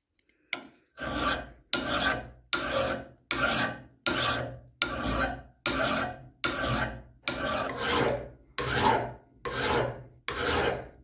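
Flat hand file rasping back and forth across the metal head of a hand press's threaded spindle clamped in a vise. It makes about fourteen even strokes, a little more than one a second.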